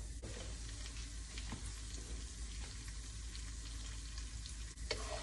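Split chickpeas and whole spices frying in hot oil in a pan, a steady soft sizzle with a few light clicks, stronger near the end.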